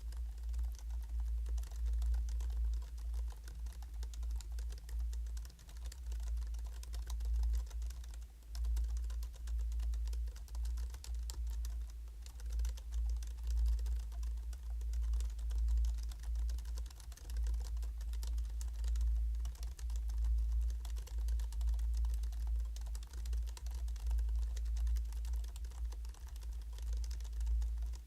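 Steady typing on a Hansung GK698 OfficeMaster low-noise wired/wireless pantograph (scissor-switch) keyboard: many soft key presses in quick succession, with short pauses about 6 and 8 seconds in.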